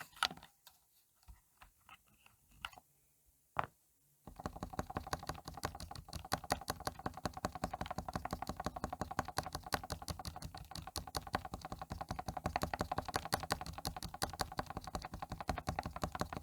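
Spacebar of an Epomaker GK96S mechanical keyboard with a Krytox-lubed switch: a few single presses, then from about four seconds in it is tapped rapidly and continuously, several clacks a second.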